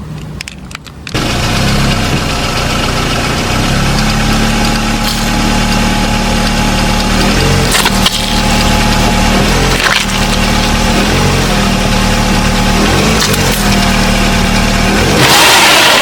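A car engine running slowly as the car rolls over objects, with occasional sharp cracks and a louder crunching burst near the end.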